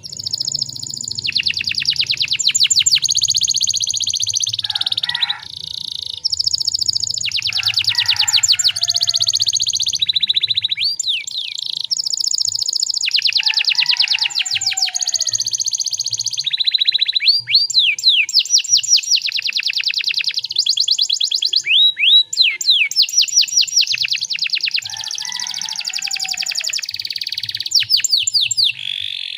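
Domestic canary singing a long, nearly unbroken song of fast rolling trills, broken up by quick rising chirps.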